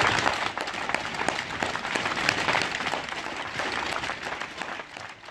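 Crowd applauding, the clapping thinning and dying away near the end.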